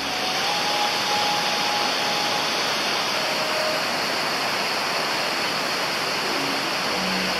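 Steady rush of flowing water at a hot-spring pool, an even hiss with no breaks.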